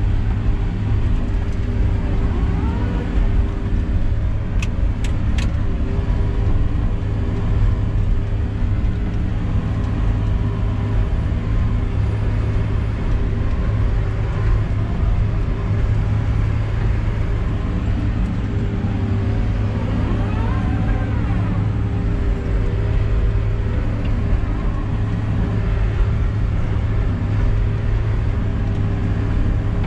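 Feller buncher's diesel engine and hydraulics running steadily, heard from inside the operator's cab, with three quick clicks about five seconds in.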